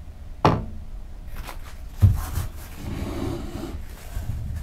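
Workbench handling noises: a sharp tap about half a second in, a dull knock about two seconds in, then the soft rustle of a paper towel sheet being handled.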